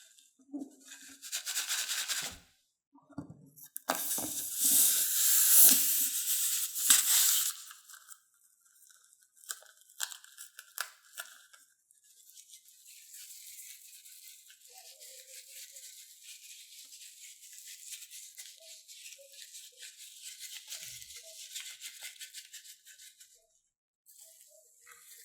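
Slime being handled and mixed: two loud bursts of crackling noise in the first eight seconds, then scattered clicks, then a long stretch of fine, steady crackling.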